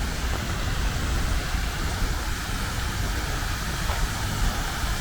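Fountain water splashing steadily, with a low rumble underneath.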